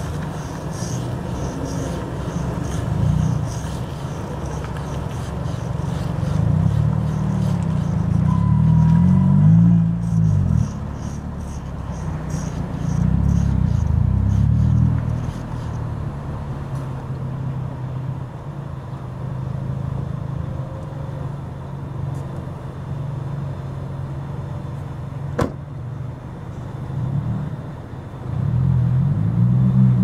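Low rumble that swells and fades several times, with a single sharp click late on.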